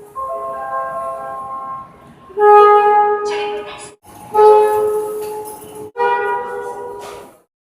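Seoul Subway Line 5 train horns. The first blast is a softer chord of several tones. Then come three loud single-pitched blasts of about a second and a half each, the last cutting off shortly before the end.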